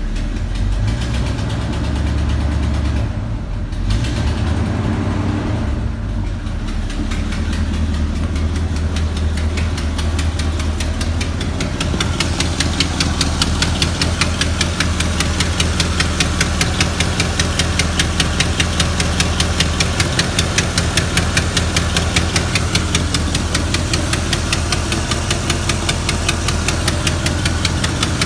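Chevy 350 small-block V8 running at a steady idle with a fast, even ticking in time with the engine; the ticking becomes much louder and plainer about twelve seconds in.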